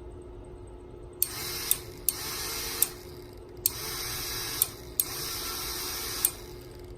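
A 22 mm momentary push button switch clicking as it is pressed and released about four times, a small motor whirring each time the button is held down and stopping when it is let go. The switch is wired normally open, so the motor runs only while the button is held.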